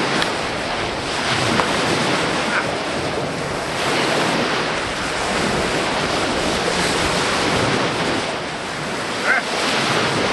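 Choppy lake waves washing against the shore, swelling and easing, with wind buffeting the microphone. A short, sharp sound stands out near the end.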